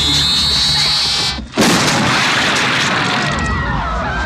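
Film sound effect of a head exploding. An eerie electronic whine rises in pitch over a low drone, then cuts off about a second and a half in. A sudden loud blast follows, and its noise slowly dies away. Near the end, people start screaming.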